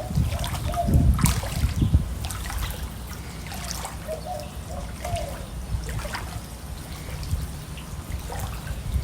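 Floodwater trickling and running in a swollen creek, with gusts of wind rumbling on the microphone, strongest about a second in.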